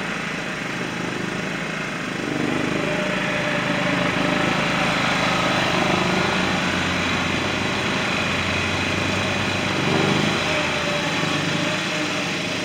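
John Deere riding lawn mower engines running steadily, growing louder about two seconds in as the mowers approach.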